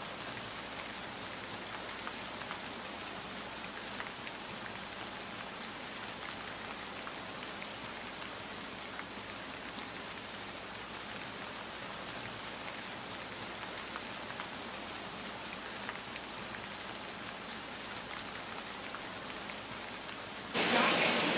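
Steady rain falling on a wet street, an even hiss with scattered drop ticks. Less than a second before the end it cuts abruptly to a much louder rush of noise.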